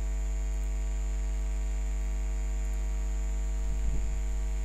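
Steady electrical mains hum on the recording, a low buzz with a faint high steady tone above it. A brief low bump sounds near the end.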